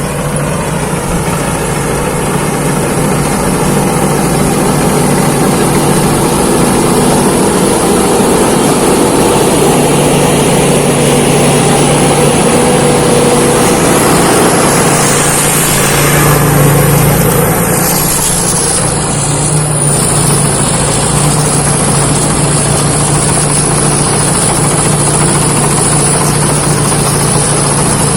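Thai Seng Yont rice combine harvester engine running steadily while harvesting, swelling slightly about two-thirds of the way through and dipping briefly just after.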